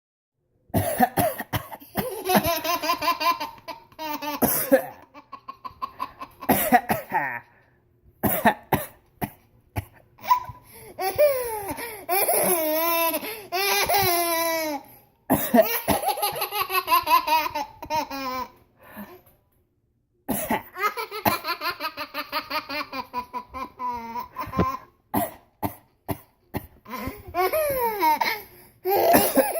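An adult's pretend coughs, each short run answered by a baby's long bouts of laughter. The two take turns over several rounds.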